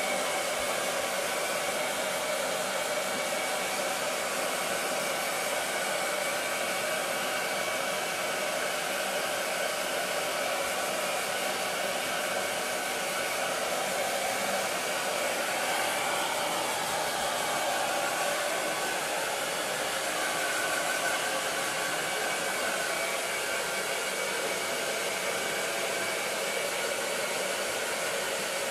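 Handheld hair dryer running continuously, blowing on a wet dog's coat: a steady rushing hiss with a faint motor whine.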